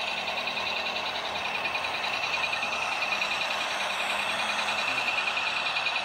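Model train running past close by on the layout track, with a steady, rapid, even clicking buzz.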